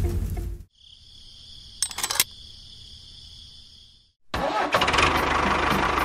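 Music cuts off, leaving a faint, steady high-pitched whine with a couple of clicks. About four seconds in, the small motor of a miniature model tractor starts and runs loudly with a fast, buzzing rhythm.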